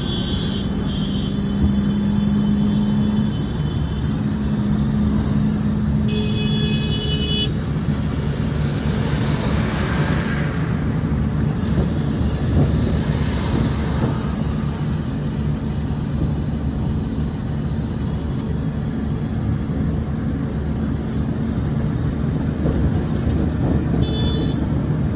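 Car cabin sound while driving on a highway: a steady engine drone and road rumble. Vehicle horns toot briefly near the start, about six seconds in and again near the end, and traffic noise swells around ten to fourteen seconds in as other vehicles pass.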